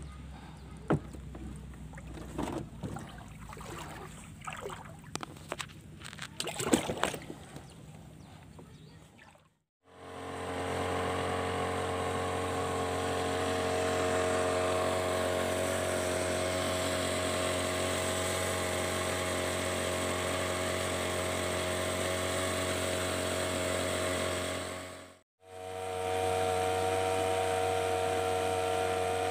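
Small boat motor running steadily at constant throttle, a drone with a high whine, after some irregular knocks and clatter in the first third. The sound cuts out briefly near the start of the drone and again near the end.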